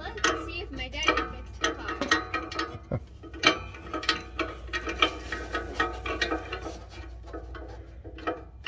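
Adjustable wrench clicking, clinking and scraping against metal as it is fitted onto an exhaust oxygen sensor under a car: an irregular string of sharp metallic clicks, some briefly ringing.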